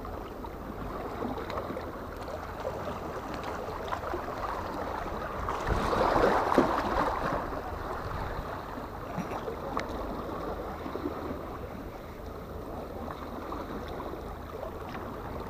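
Steady noise of wind on the microphone and small waves washing against breakwater rocks, swelling to a louder rush about six seconds in.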